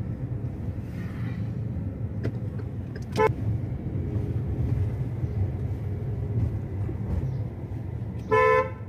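Car horn honking: a short beep about three seconds in and a louder honk lasting about half a second near the end, over the steady low rumble of a car driving.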